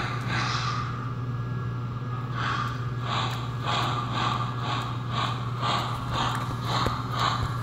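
Digitally generated steam-locomotive chuffs from the speaker fitted to an old American Flyer toy steam engine, timed to its drive wheels at four chuffs per wheel turn. After a short pause the chuffs pick up about two seconds in and quicken from about two to about four a second. A steady low hum runs underneath.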